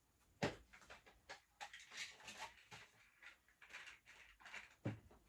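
Faint handling sounds from plastic product bottles and packaging: rustling and small clicks, with a sharper knock about half a second in and another near the end as items are picked up and set down.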